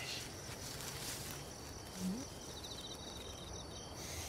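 Night insects chirping steadily in the background, with a short fast trill about two thirds of the way in, and one brief low sound about two seconds in.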